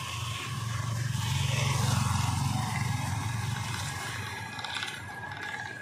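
Street traffic: a motor vehicle's engine rumbles past close by, swelling to its loudest about two seconds in and then fading.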